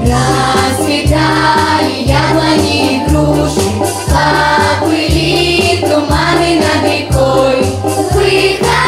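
Children's choir singing a song over an instrumental accompaniment with a regular bass line.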